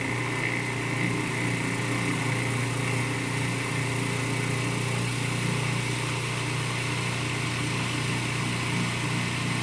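Cuisinart food processor motor running steadily, a continuous even hum, as it mixes flour into pizza dough while beer is poured in through the feed tube.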